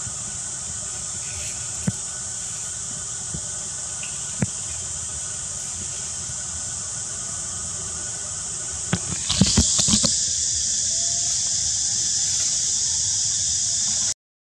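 Steady, high-pitched drone of insects, with a few sharp clicks and a short cluster of knocks about nine seconds in. After the knocks the drone is louder, and it cuts off just before the end.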